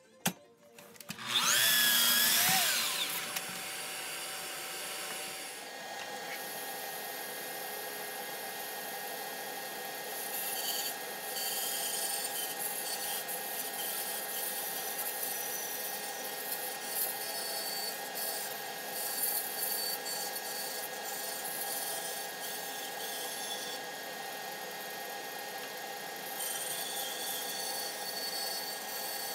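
A miter saw makes a short, loud cut about two seconds in, after a click. Then a band saw runs with a steady hum, and its blade cuts through a thick wooden board, the rasping cut noise rising and falling as the board is fed.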